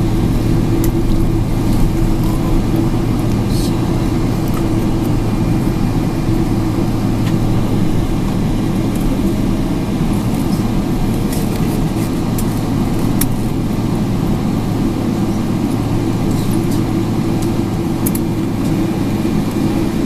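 Steady cabin noise inside a jet airliner rolling on the ground after landing: an even low engine and airflow hum with a few faint rattling clicks.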